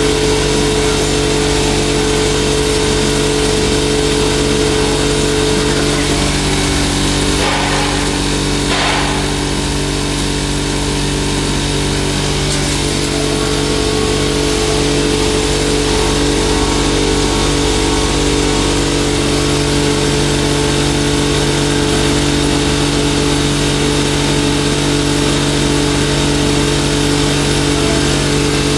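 Hammer-mill pulverizer driven by a belt from an electric motor, running steadily with a constant multi-tone hum while turmeric is fed into its hopper and ground, with a brief rattle twice about seven and nine seconds in.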